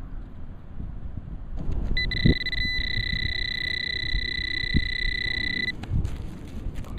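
Fisher F4 metal detector giving a steady high tone for almost four seconds as it responds to a buried target. The tone cuts out briefly once and then stops sharply, and a short burst of the same tone comes at the end. Low wind rumble and a couple of thumps run underneath.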